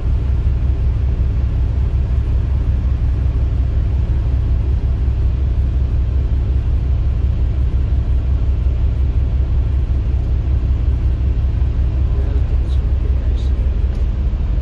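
Motor yacht's main engine idling steadily on a warm-up run, a deep even rumble.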